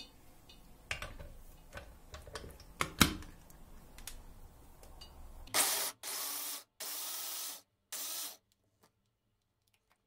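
Arçelik hand blender's chopper attachment running in four short pulses, chopping black grapes; each burst is even in level and cuts off abruptly. Before the pulses come scattered clicks and knocks as the blender is fitted onto the chopper bowl.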